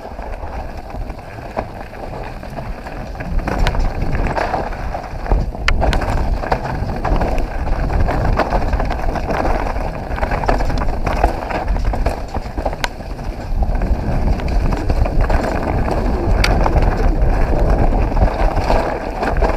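Mountain bike descending a dirt trail at speed: tyres rolling over packed dirt and fallen leaves, with wind buffeting the camera microphone and a few sharp clicks and knocks from the bike over bumps.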